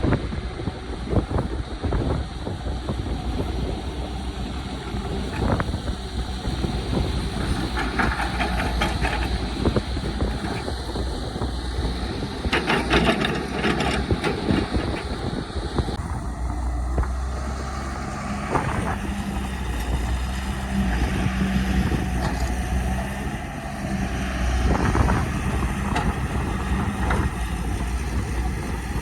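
Caterpillar excavator's diesel engine running steadily, with bouts of metallic clattering and rattling, and a low engine tone that rises about two-thirds of the way through.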